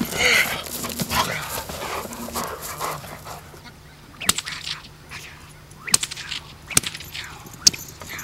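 German Shepherd protection dog making vocal sounds for the first few seconds, then several sharp knocks in the second half.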